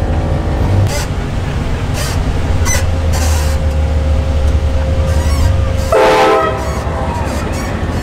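Train horn on a truck blowing a long steady chord over the truck's low engine hum, ending in a short louder blast and cutting off about six seconds in.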